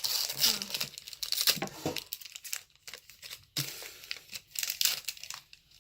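Plastic hockey card pack wrapper crinkling and tearing as a pack is opened by hand, in irregular rustles and sharp crackles.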